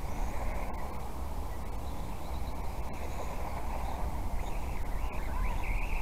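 Steady outdoor noise with a low wind rumble on the microphone. Near the end a faint whine rises, from a small electric RC car's motor.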